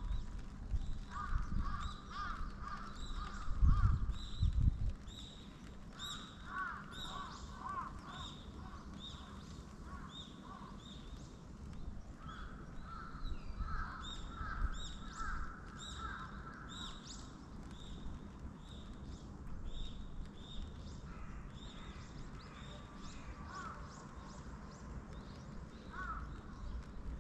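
Crows cawing among short, rapidly repeated chirps of smaller birds in the dawn chorus, thinning out after about 17 seconds. A brief low rumble about four seconds in is the loudest sound.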